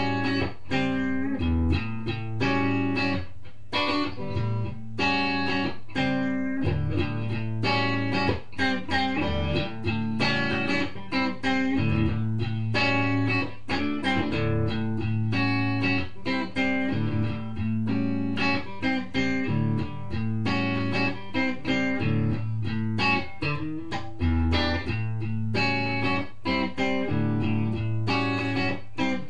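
Guitar music: a steady stream of plucked notes over held low notes.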